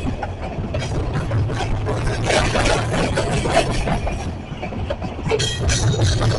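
Freight train under way: a diesel locomotive's low, steady engine rumble with irregular clanking and rattling of railcars and couplers. A brief high-pitched squeal comes a little past five seconds in.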